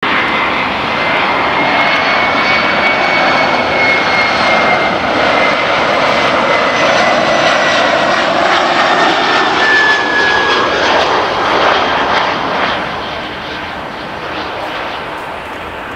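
Airbus A319 airliner on final approach, its jet engines running with a loud, steady rushing noise and a thin high whine that dips slightly in pitch about ten seconds in as the plane passes. The sound falls away after about thirteen seconds.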